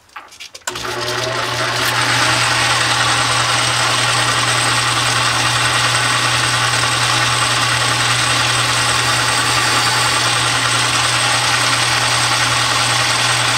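Metal lathe switched on after a few clicks: the motor and gearing come up to speed over about a second, then run steadily with a strong low hum.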